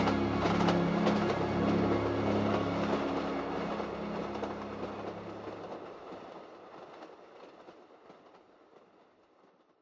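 Passenger train running, a steady drone with wheel clatter, fading gradually away to near silence over the last few seconds.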